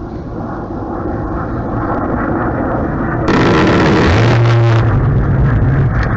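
A jet aircraft roaring low overhead. The roar builds steadily, jumps much louder about three seconds in, and carries a steady low hum near the loudest point.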